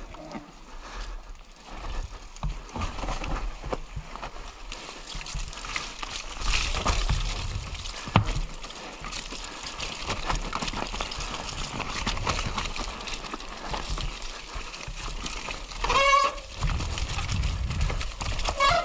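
Mountain bike descending a wet, muddy and stony forest trail: tyres rolling over dirt and gravel, and the bike clattering over bumps with a sharp knock about eight seconds in. A short whining buzz from the bike comes near the end.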